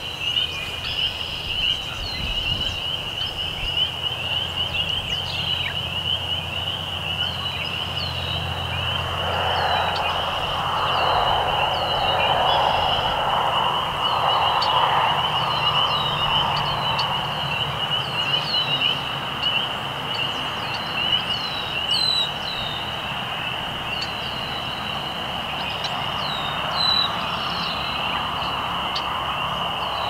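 A dense chorus of spring peepers: a steady, high-pitched wall of rapid peeps, with nearer single peeps standing out above it. A softer, lower rushing murmur swells up in the middle and again near the end.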